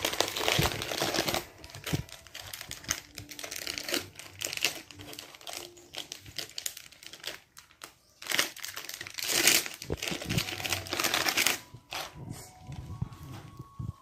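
Plastic snack wrapper crinkling and rustling as it is handled, in repeated bursts, the strongest near the start and again about two-thirds of the way in.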